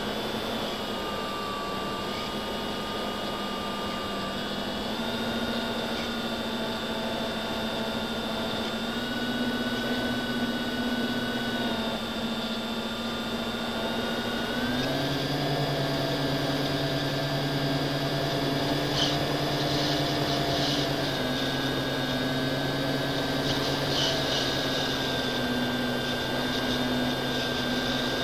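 FPV quadcopter's brushless motors whining steadily in flight, the pitch stepping up and down with the throttle and jumping higher about halfway through.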